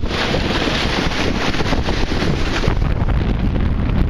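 Heavy wind buffeting the microphone aboard a Snipe dinghy sailing in a strong, gusty breeze, over water rushing past the hull. The hiss eases a little near the end.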